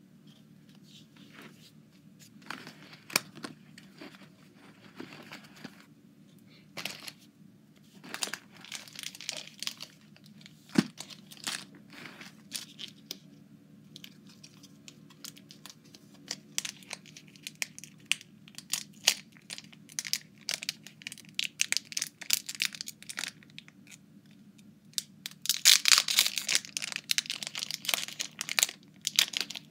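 Foil Pokémon booster pack wrapper crinkling and tearing, with cards being handled. It goes in scattered crackles and rustles, then turns into a dense, loud spell of crinkling near the end.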